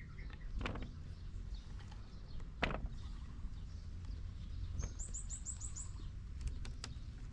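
A small bird gives a quick run of about seven high chirps about five seconds in, over a steady low rumble of outdoor background noise. A few sharp knocks sound along the way.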